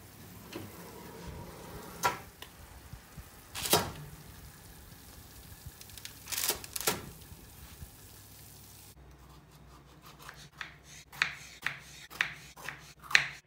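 A few clanks and knocks as the oven door is opened and the tray of baked bread is handled. Then, from about two-thirds of the way in, a knife slicing a tomato on a wooden cutting board makes a quick run of sharp knocks, about three a second.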